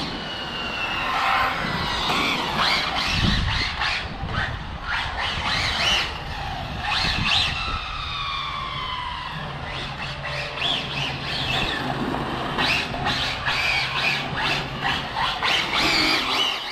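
Twin-motor Arrma Felony RC car's brushless electric motors whining, the pitch sweeping up and down again and again as the throttle is worked, with short bursts of tyre scrub on the asphalt as the car is slid through drifts.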